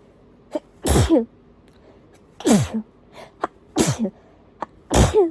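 Allergic sneezing fit: four sneezes about a second and a half apart, most with a quick sharp breath in just before, each ending in a voiced cry that falls in pitch.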